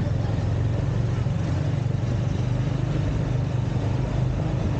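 Motorcycle engine running steadily under way, with a constant low drone and road noise.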